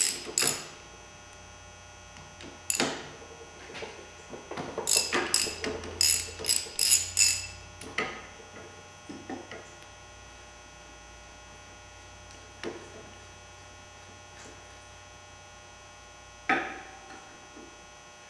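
Metal clicks and clinks of a wrench working the bolts that hold the electric motor on a Western Unimount snowplow's hydraulic pump, with a quick run of clicks a few seconds in and single clicks spaced out after it. A steady electrical hum runs underneath.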